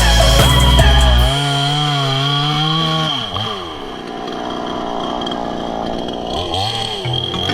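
Chainsaw running at high revs with a wavering pitch, dropping to a lower speed about three seconds in, then revving back up near the end.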